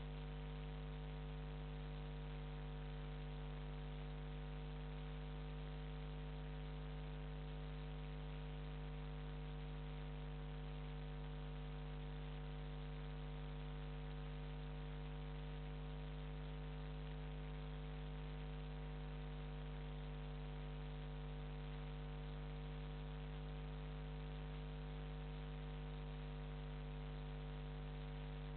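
Steady electrical mains hum, a low drone with buzzing overtones and a hiss over it.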